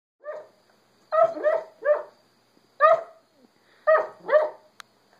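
Merle Great Dane puppy barking in its sleep while dreaming: seven short barks in irregular clusters, each dropping in pitch.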